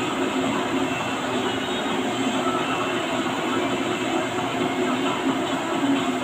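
Steady mechanical noise, an even rumble with a low hum.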